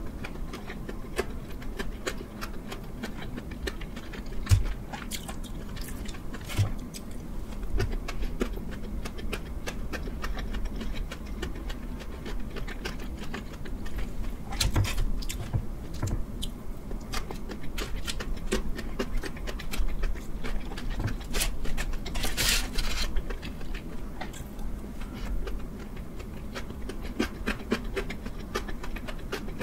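Close-miked eating of gimbap: chewing with many small wet mouth clicks, with chopsticks and the aluminium foil under the rolls rustling now and then, over a low steady hum.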